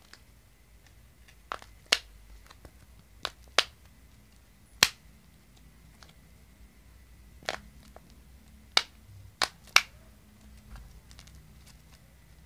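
A series of about nine sharp, short clicks at irregular intervals, over a quiet background with a faint steady high tone.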